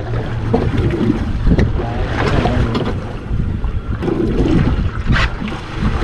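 Wind on the microphone and sea water washing against a boat's hull, over a low steady hum, with a couple of sharp knocks.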